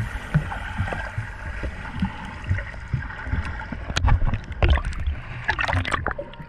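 Water sloshing and gurgling around a camera held at and just below the sea surface, with low muffled thumps throughout. Between about four and six seconds in there are sharper crackling bubble sounds.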